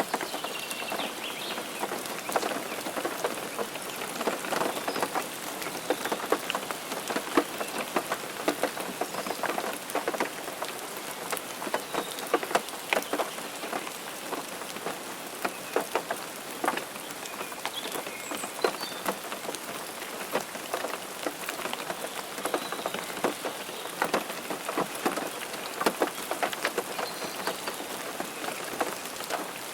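Steady rain falling, with many close individual drops ticking sharply against a hard surface over the hiss of the rain.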